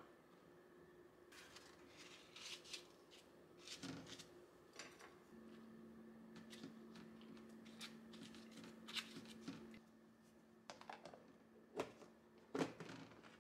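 Quiet kitchen handling sounds: bamboo chopsticks clicking against a glass dish, a paper towel rustling as it is laid over the food, and a lid being pressed onto the glass container, with the loudest clicks near the end. A faint steady hum sits under it from about five seconds in.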